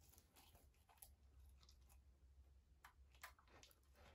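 Faint chewing and mouth clicks of two German Shepherd dogs eating pieces of meat: soft, irregular wet ticks and smacks a few times a second.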